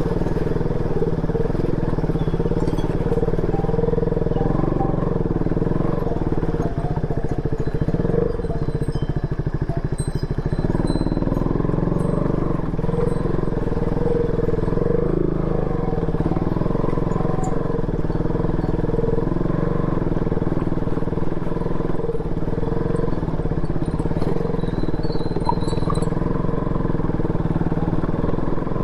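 Motorcycle engine running steadily while being ridden at an even pace over a muddy, rough road, with road and wind noise.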